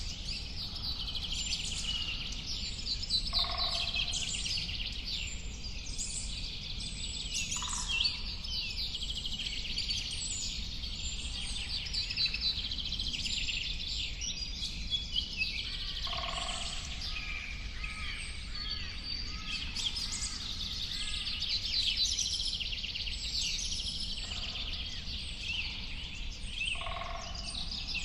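Several birds singing and chirping at once, with rapid high trills and chirps throughout and a falling run of notes about halfway through. A lower call comes three times, roughly every twelve seconds.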